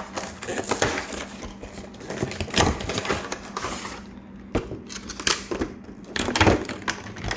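A Pokémon TCG Boltund V cardboard collection box and its packaging being opened and handled by hand: a run of rustling, crinkling and sharp clicks and tears, with louder rips a couple of times.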